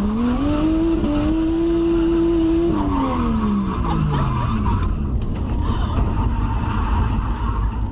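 Drift car's engine heard from inside the cabin, held at high revs, then falling away steadily about three seconds in as the driver lifts off, over tyre and road noise. A woman passenger laughs during the slowdown.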